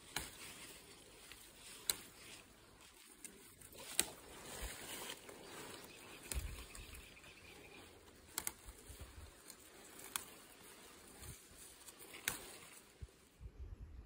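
Fresh green tea shoots being snapped off the bush by hand: a short sharp snap every two seconds or so, about seven in all, amid light rustling of the leaves.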